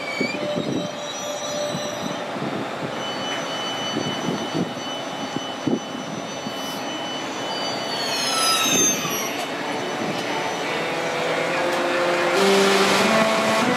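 ÖBB class 1116 Taurus electric locomotive rolling slowly into the platform: a steady rumble with a few rail knocks, and high wheel or brake squeals that fall in pitch about eight seconds in. Near the end it gets louder and a short series of stepped humming tones from the locomotive's traction converters sounds as it slows.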